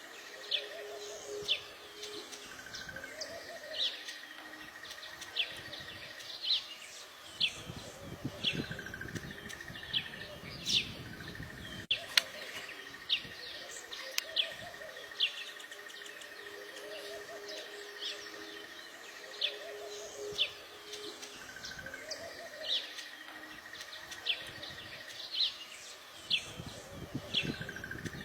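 Small birds chirping: short, sharp chirps roughly once a second, uneven in timing, over a faint steady high-pitched tone.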